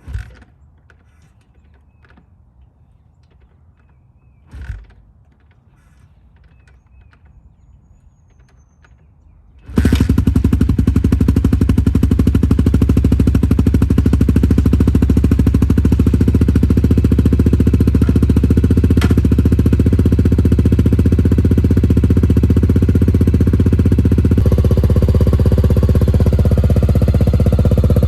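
A 2001 Honda XR400R's single-cylinder four-stroke engine starts about ten seconds in and idles with a steady, loud, pulsing beat through an XR's Only aftermarket exhaust pipe. Before that there are only two short thuds.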